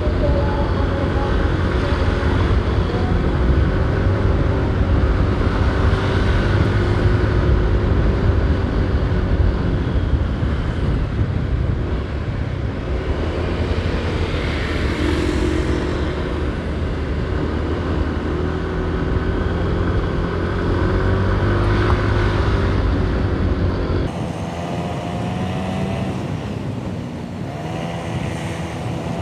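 Motorcycle running along a road, its engine hum mixed with a steady rush of road and wind noise on the rider's microphone. About three-quarters of the way through the low rumble drops off suddenly, and the engine's pitch then rises and falls.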